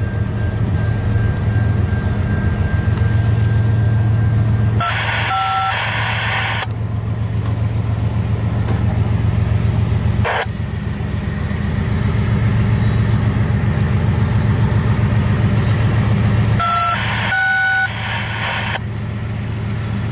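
CN diesel locomotives passing over a rail bridge, their engines running with a loud, steady low drone and a single knock about halfway. Twice, about 5 s and 17 s in, a short high horn-like blast cuts in for a second or two.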